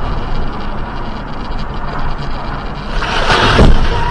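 Steady road and engine noise of a car driving, heard from inside through a dashcam. About three seconds in a louder rush of noise swells up, then a brief falling tone.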